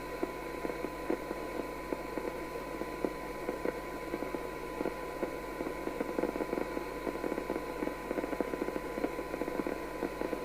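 Maxcom 7E FM CB receiver's audio on a weak test signal: a steady 1 kHz test tone half-buried in hiss and crackle as the front-end coils are tuned for best sensitivity.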